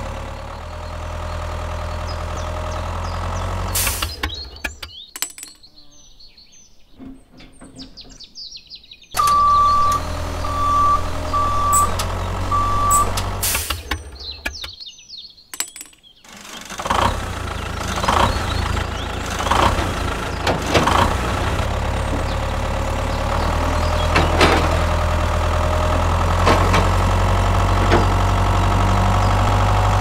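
Tractor engine idling with a steady low rumble, a sound effect laid over the scene. It cuts out twice for a few seconds. Just after it comes back the first time, four short high beeps sound about a second apart, and later there are a few clattering knocks.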